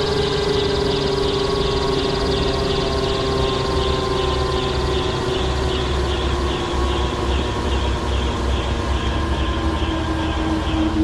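Schweizer 269C-1 helicopter's four-cylinder piston engine and rotor drivetrain running during shutdown, with a steady whine that slowly falls in pitch as the rotor system winds down after the clutch is disengaged.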